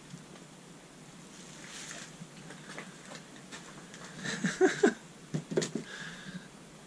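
Handling noise: rustling, then a cluster of sharp knocks and scrapes about four to five and a half seconds in, as a covering panel and crumbled debris are shifted on the body of an old car.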